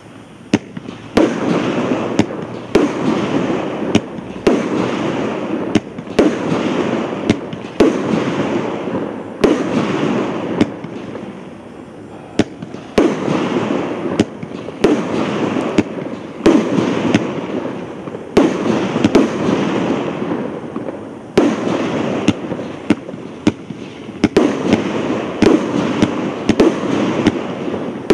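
A 36-shot aerial repeater fireworks cake firing shot after shot, with sharp reports about every one and a half to two seconds over a continuous noisy hiss.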